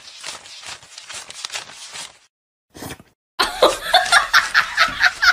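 Paper banknotes rustling in short strokes as they are counted by hand. After a short silence a little past halfway, a louder run of rapid, high-pitched vocal pulses follows, about five a second.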